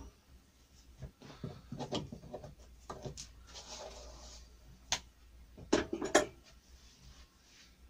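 Handling sounds on a workbench: a pencil rubbing on an MDF template board, with light clicks and a few sharp wooden knocks about five and six seconds in.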